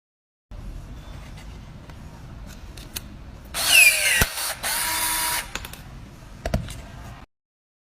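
Electric hammer drill: a low rumble, then two loud runs of the tool about a second each, the first with a falling whine and ending in a sharp click. A thump comes near the end, and the sound cuts off abruptly.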